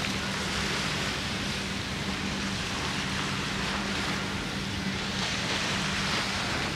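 Seaside ambience: a steady wash of surf with a constant low engine hum underneath.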